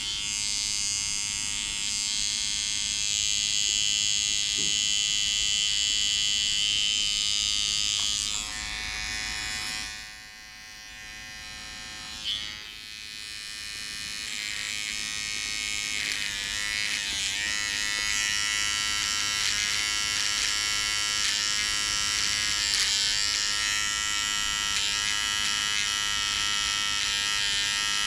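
Electric shaver buzzing steadily as it trims a beard, going quieter for a few seconds around the middle before picking up again.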